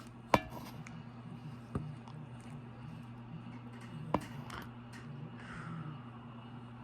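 Steady low hum, with three sharp light clicks spread through.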